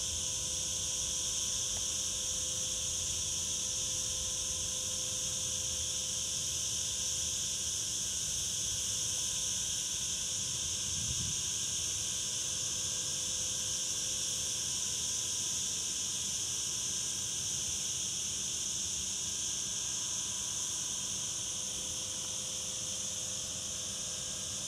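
Insects singing in a steady, unbroken high-pitched chorus.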